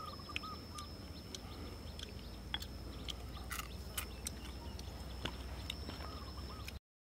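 Outdoor ambience: a bird gives short chirps near the start and again near the end over a steady high whine, with scattered light clicks from small things being handled. The sound cuts off suddenly just before the end.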